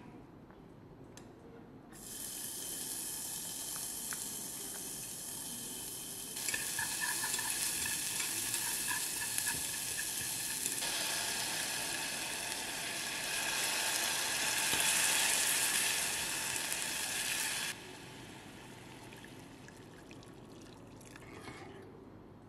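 Chopped garlic, chili and green onion, then kimchi, sizzling in hot oil in a small non-stick saucepan. The sizzle starts suddenly about two seconds in, grows louder partway through, and cuts off sharply a few seconds before the end, leaving only a faint hiss.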